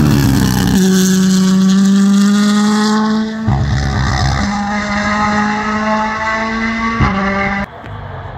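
Rally car engine at high revs pulling hard, its note climbing slowly and breaking off abruptly at gear changes about three and a half and seven seconds in. Near the end the sound drops away suddenly, leaving a fainter engine note.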